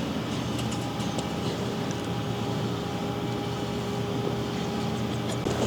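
A steady mechanical hum from a motor running at a constant pitch, with a few faint ticks.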